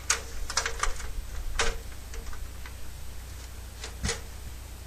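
Ladder knocking as it is climbed: about five sharp, unevenly spaced knocks, each with a short ring, with a long gap before the last one near the end.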